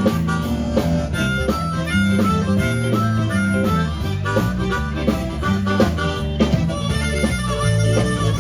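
Live blues band playing an instrumental break, a harmonica solo over guitar, bass and drums with a steady beat.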